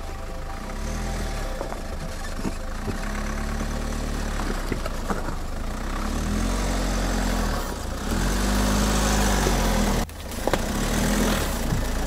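SsangYong Rexton Sports Khan's 2.2-litre turbodiesel pulling the truck slowly up a rough crushed-stone track in high-range four-wheel drive. Its note rises and falls repeatedly as the throttle is worked, and sharp clicks of stone sound under the tyres.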